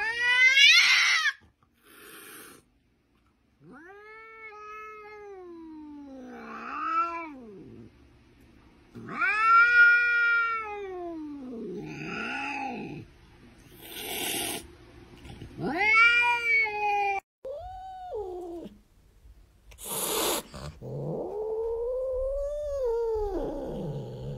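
A tabby cat meowing over and over in a string of long, drawn-out calls, most rising and then falling in pitch, with short breathy sounds between some of them.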